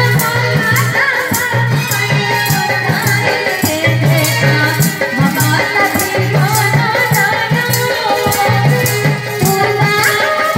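A woman sings a devotional song through a microphone and PA, over a steady beat of percussion and a low drum pattern.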